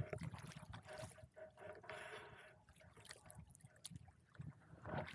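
Faint water sounds around a kayak: trickling and dripping water with scattered small splashes and knocks, growing louder again near the end.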